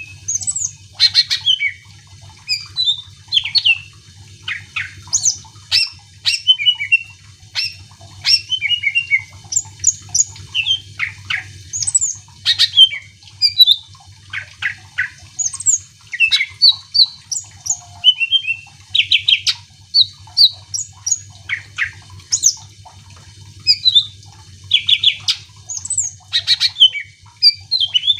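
Greater green leafbird (cucak ijo) in full song: a fast, varied, unbroken stream of sharp whistles, chirps and sweeping notes, with a faint steady low hum underneath.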